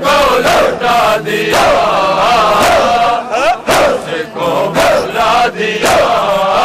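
A group of men chanting in chorus to a melody, with sharp beats striking roughly once a second in time with the chant.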